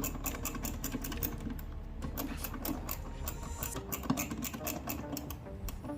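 Small hand ratchet clicking rapidly and unevenly as screws are driven back into a plastic blower motor resistor housing.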